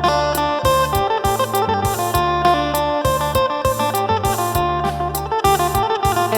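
Phin (Isan Thai lute) playing a quick melody of plucked notes over a low bass line and a steady, regular percussion beat.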